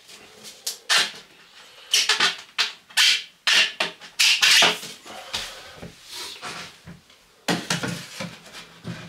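White PVC 90° pipe elbow being pushed and twisted onto a compost toilet's plastic vent pipe: a series of sharp plastic scrapes and knocks, with a cluster of duller knocks near the end as the pipe is pressed against the wall.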